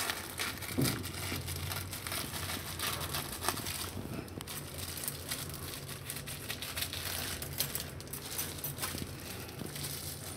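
Thin plastic sheet crinkling and rustling in irregular crackles as it is snipped with scissors and handled around a wrapped roll.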